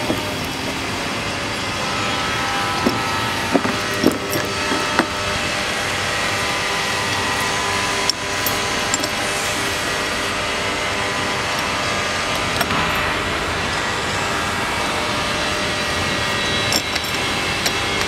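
Steady mechanical background hum with a scatter of light metallic clicks and knocks, a cluster of them about three to five seconds in and single ones later, as steel connector plates are handled and set down on plastic ground-protection mats.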